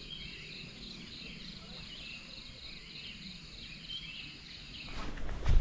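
Steady high-pitched insect chorus, crickets or cicadas, with twittering bird calls over it. About five seconds in it breaks off into rougher outdoor noise with a loud low thump near the end.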